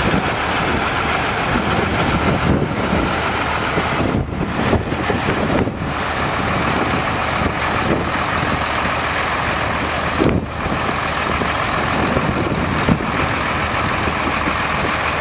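John Deere 8430 tractor's turbocharged six-cylinder diesel engine running steadily as the tractor drives slowly, with a few brief dips in the sound.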